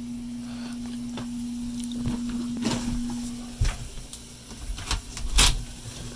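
A steady low hum that fades about three and a half seconds in, with scattered knocks and thumps from a door being opened and the phone being handled.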